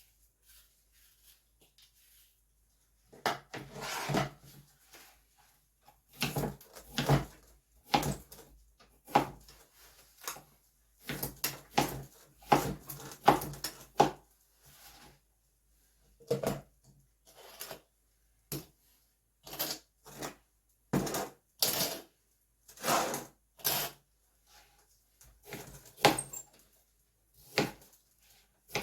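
Diced pear and sugar being spooned into a glass jar in layers: short bursts of scooping, scraping and clunking against the glass, roughly one a second, starting about three seconds in.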